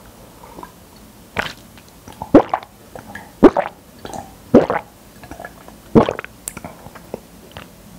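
Close-miked gulping as a person drinks from a tall cup: about five loud swallows, roughly a second apart.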